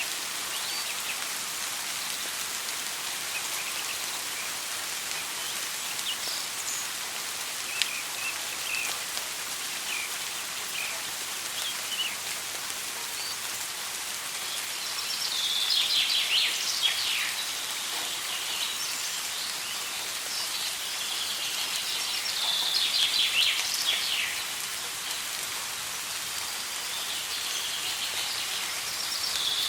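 Soft rain falling steadily, with birds singing in the background: scattered short high chirps, and three louder bursts of rapid chirping, about halfway through, again some seconds later, and at the very end.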